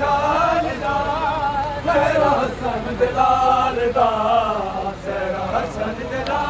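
Men's voices chanting a noha, a Shia mourning lament, sung together to a slow, wavering melody.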